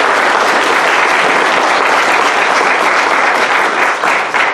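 Audience applauding: dense, steady clapping that thins to scattered claps near the end.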